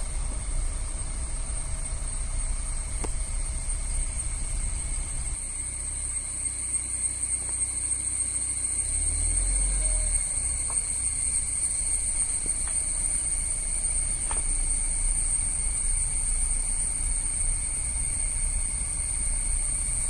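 Steady, high-pitched drone of forest insects such as cicadas or crickets, with a low rumble underneath that eases off for a few seconds about a third of the way through.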